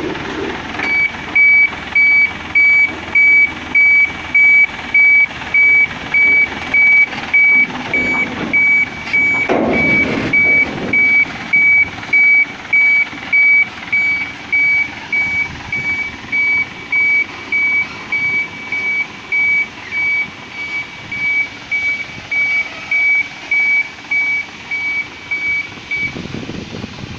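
Forklift's warning beeper sounding: one high-pitched beep repeated about one and a half times a second, growing fainter in the second half.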